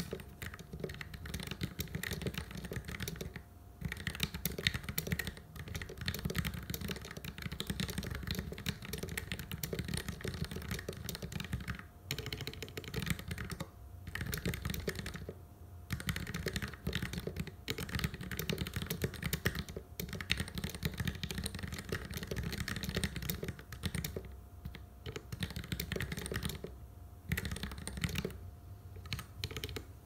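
Typing on a mechanical keyboard with lubed Kailh BOX Black linear switches in a steel plate and PBT Cherry-profile keycaps: a dense, continuous run of keystrokes with a few short pauses, thinning out near the end.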